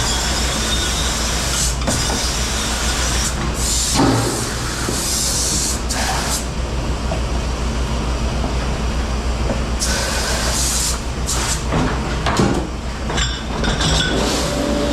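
Dish pit noise: a steady low machine hum, with bursts of hissing water spray lasting a second or so and a few sharp clatters of dishes.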